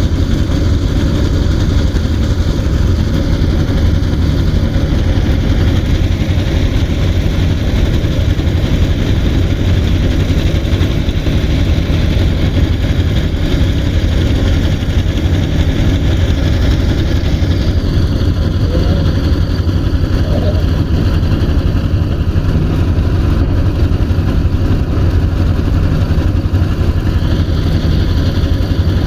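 An engine running steadily at a constant low rumble, with no change in speed.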